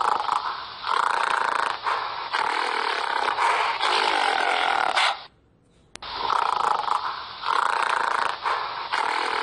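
Gorilla giving a run of hoarse roars and grunts in several rough bursts. The calls break off about five seconds in, and after a click a second later the same sequence starts over.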